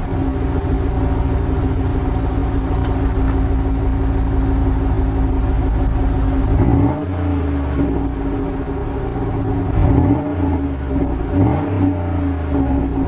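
Buick LeSabre's 3800 Series II V6 running at a fast idle seconds after a cold start at −14 °F, with a steady hum over the engine note; the low rumble changes about halfway through.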